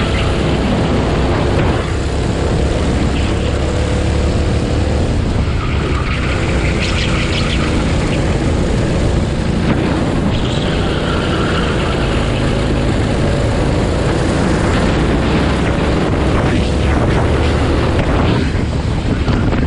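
Racing go-kart engine running at race pace, its pitch rising and falling again and again as it revs up the straights and drops for the corners.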